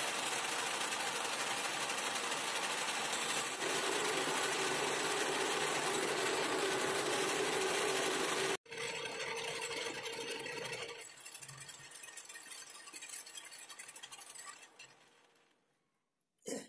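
Heavy engine lathe running with a four-jaw chuck, its tool turning down a metal bar. This is a trial cut along the job to check whether the machine cuts a taper. The sound stops short a little past halfway, then the machine runs down to a standstill a few seconds before the end.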